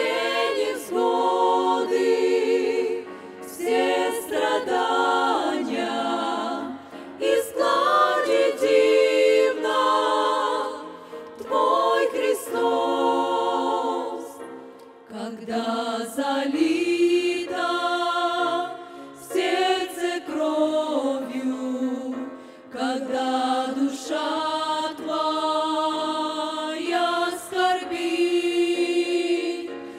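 A women's vocal group of six singing a Russian Christian hymn together in harmony, phrase after phrase with short breaks between.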